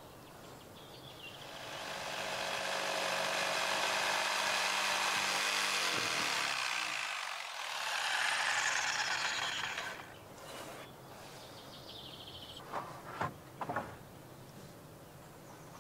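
Chainsaw cutting through a length of timber in two runs of a few seconds each, with a brief dip between them, then shutting off. A few light wooden knocks follow near the end.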